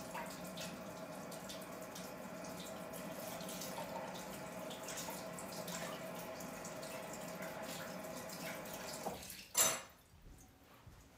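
Kitchen tap running steadily, with a steady hum in the flow, then shut off about nine seconds in, followed at once by a sharp clack.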